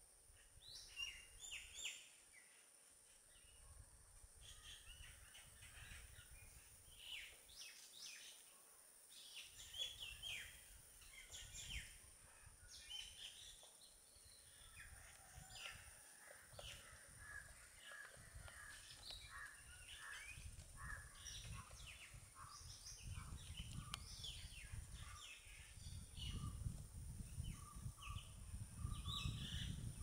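Several wild birds calling with many short, quick chirps and calls, with a low rumble underneath that grows stronger near the end.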